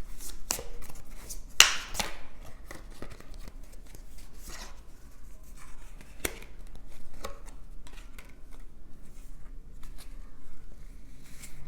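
A deck of oracle cards being shuffled and handled: an irregular run of soft card slaps, flicks and rustles, the loudest knock a little under two seconds in.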